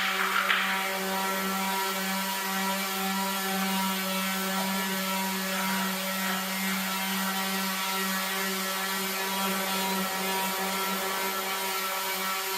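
An electric power tool's motor running steadily, with a constant buzzing hum and a rattly mechanical edge. There are a couple of louder bursts in the first second.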